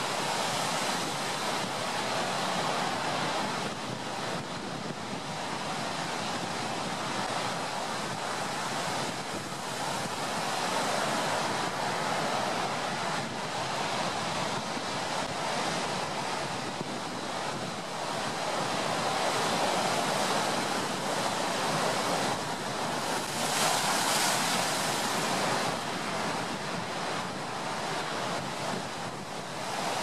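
Ocean surf washing in slow, rolling swells, blended with a steady bed of brown noise. One wave surges louder and brighter about three quarters of the way through.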